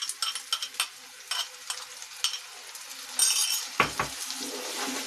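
Hot oil and onion masala crackling and sizzling in a kadai as tomato puree is poured in, with a louder burst of sizzling about three seconds in. Two sharp knocks against the pan follow soon after.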